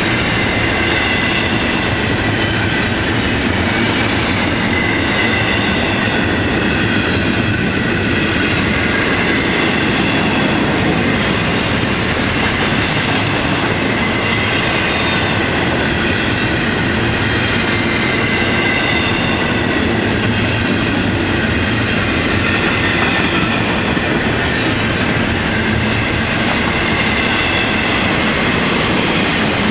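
Freight train of double-stack intermodal well cars rolling steadily past close by: a continuous rumble of steel wheels on rail with a high, wavering squeal from the wheels over it.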